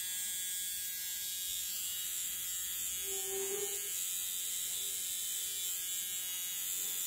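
Electric permanent-makeup tattoo pen buzzing steadily with a high motor whine as it works pigment into an eyebrow.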